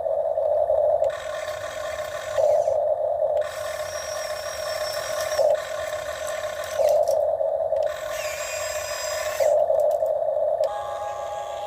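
Huina RC excavator's electric motors whining as the boom, arm and bucket are worked, rising and falling in short bursts about a second long, with scraping noise in the louder stretches.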